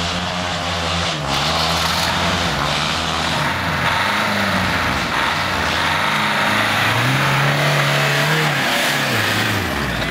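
Off-road 4x4's engine revving up and down repeatedly as it works through deep mud ruts, with a long higher rev in the second half that falls away near the end. The tyres churn and throw mud.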